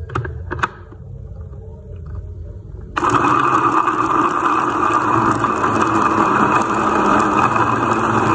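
Clicks and knocks as a glass jar is seated on an electric food chopper's base, then about three seconds in the chopper's motor starts and runs steadily, its blades mincing chopped chicken thigh meat.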